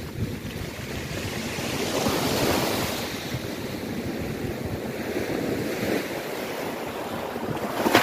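Sea waves breaking and washing in on the shore, with wind buffeting the microphone; the wash swells louder about two seconds in.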